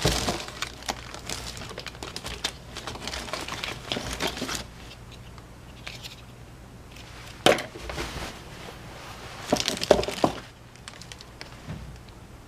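Packaging being handled and unpacked: crinkling and rustling for the first few seconds, then quieter handling with a sharp knock about seven and a half seconds in and a few louder rustles or knocks around ten seconds.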